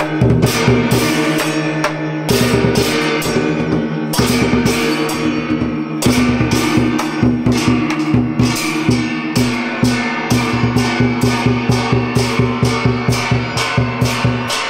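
Vietnamese trống chiêng ensemble: hand-held bossed gongs struck with beaters, their tones ringing on and overlapping, over a large drum beaten in a steady rhythm. The strokes come quicker after about ten seconds, at roughly three to four a second.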